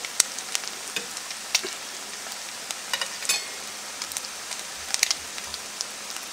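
Salmon patties frying in hot vegetable oil in a cast iron skillet: a steady sizzle with scattered, irregular pops and crackles.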